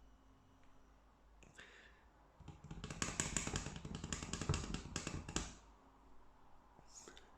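Handling noise from unboxing a camera lens: a few faint clicks, then a dense run of crackly rustling and sharp clicks lasting about three seconds, starting about two and a half seconds in.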